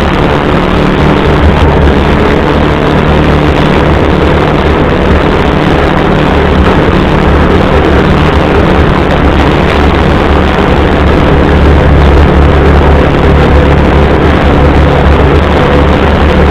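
CFMoto UForce 600 side-by-side's engine running steadily under way, a loud, constant low drone with the rattle and road noise of the moving machine and no marked revving.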